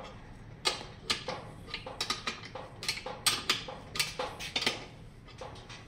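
Irregular metallic clicks, about two or three a second, of a wrench working the nut along the threaded rod of a frame-spreader tool. The tool is forcing the rear dropouts of a Stacyc balance-bike frame apart to take a wider hub motor.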